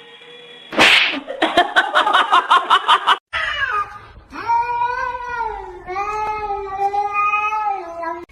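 A loud burst and a rapid pulsing call, then a cat yowling in two long, drawn-out calls that rise and fall in pitch.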